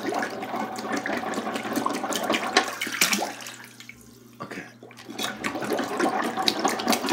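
Water sloshing and splashing in a clogged toilet bowl as a plastic water bottle with its bottom cut off is pumped up and down in it like a plunger, with a quieter spell in the middle. The clog is not clearing.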